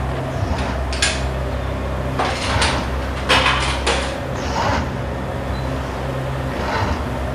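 Snack vending machine humming steadily, with a string of clicks, clatters and short rattles as a hand works its panel; the busiest clatter comes a few seconds in.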